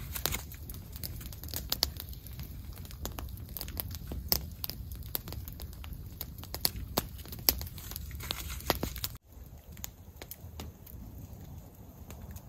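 Wood campfire crackling, sharp pops a few times a second over a low rumble. About nine seconds in the sound drops abruptly, and the crackles go on quieter and sparser.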